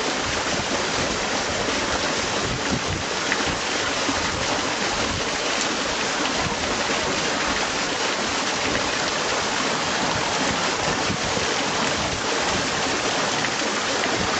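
Water rushing steadily through a canal lock's sluices, an even hiss with no break.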